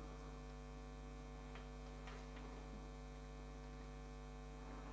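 Faint, steady electrical mains hum, with a few faint clicks a couple of seconds in.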